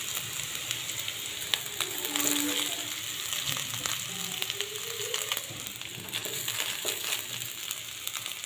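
Oil sizzling in a frying pan as cooked basmati rice is added onto a layer of fried carrots, beans and capsicum, with scattered sharp clicks of a utensil against the pan.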